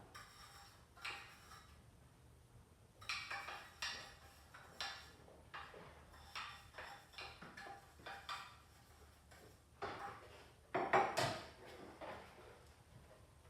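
Quiet, irregular kitchen clatter of utensils and baking tins being handled, light clicks and knocks, with a louder cluster about eleven seconds in.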